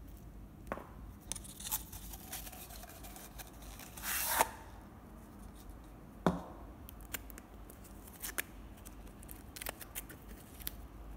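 Hands handling feather badminton shuttlecocks and their packaging: scattered light clicks and taps, with a short rasp about four seconds in and a sharp knock a couple of seconds later.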